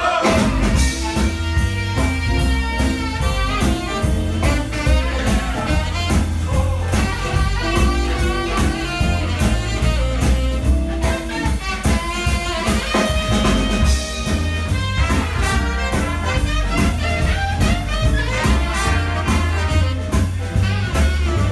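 A 1920s-style hot jazz band playing live: saxophone, trombone and trumpet over a steady bass line and a regular drum beat.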